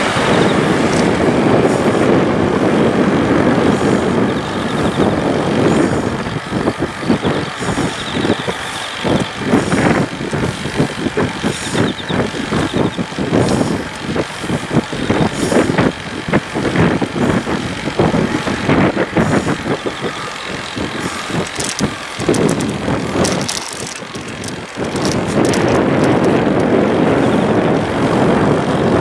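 Wind buffeting a moving camcorder's microphone, a dense rushing noise. Through the middle stretch it breaks into a run of irregular knocks and rattles, then eases briefly before the steady rush returns near the end.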